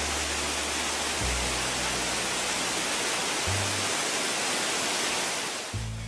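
Steady rushing of water gushing from a tanker truck's discharge pipe, an even hiss that cuts off suddenly near the end, over background music with low bass notes.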